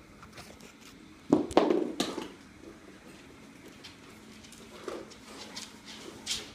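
Chow Chow puppy's paws and claws tapping and scuffling on a hardwood floor as it moves about playing. A brief louder burst of noise comes about a second and a half in.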